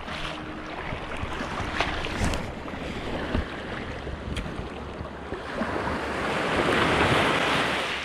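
Small waves washing onto the beach at the water's edge, with wind on the microphone. A wave surges in louder about six to seven seconds in.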